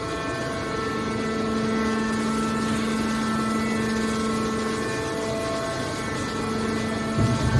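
Hydraulic scrap-metal baler running, its pump and motor giving a steady hum with an even whine over a mechanical noise. A louder low thump comes near the end.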